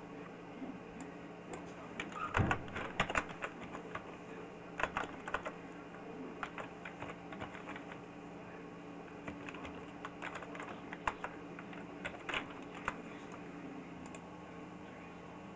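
Computer keyboard typing: irregular runs of short key clicks with pauses between them, over a steady low hum.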